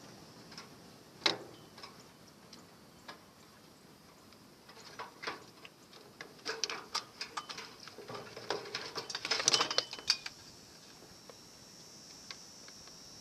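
Irregular light clicks and metallic taps of a microwave oven being taken apart by hand. A few sparse ticks early on give way to a busy run of rapid clicking and rattling from about six to ten seconds in.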